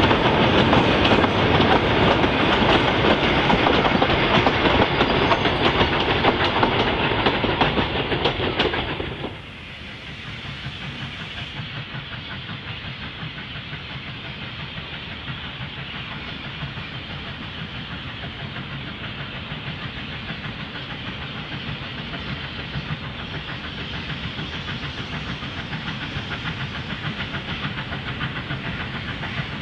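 Train of wooden passenger carriages rolling past close by, wheels clicking over the rail joints. About nine seconds in, this cuts off suddenly to a much quieter steam locomotive working toward the listener from a distance, slowly growing louder.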